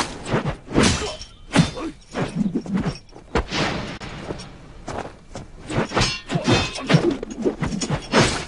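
Film sound effects of a monk's spade, a long staff with a crescent blade, being swung and spun: an irregular rapid series of whooshes and thuds as it cuts the air and strikes the ground.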